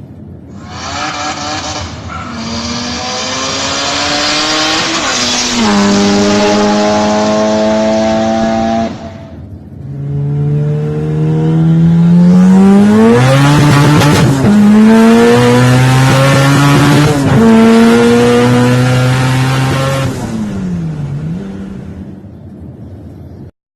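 2018 Honda City's engine accelerating hard, its note climbing in pitch in two long loud pulls, each broken by sudden drops in pitch as it shifts up, then falling away near the end.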